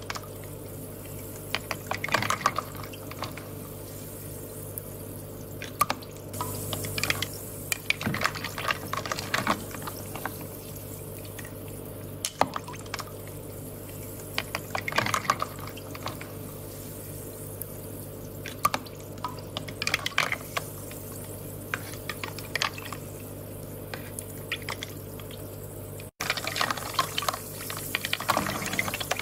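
Water dripping and trickling, small splashes coming in irregular clusters every few seconds over a steady low hum.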